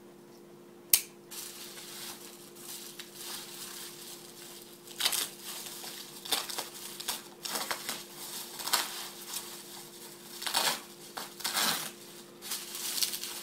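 Plastic packing wrap rustling and crinkling in irregular bursts as it is pulled off an item by hand, with a single sharp click about a second in.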